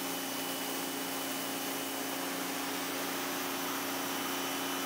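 Greenworks 2000 PSI electric pressure washer running steadily with the trigger held open, its motor and pump giving a steady hum and faint high whine under the hiss of the water jet from a 40-degree nozzle. A pretty quiet unit, reading about 80 to 83 dB at three feet.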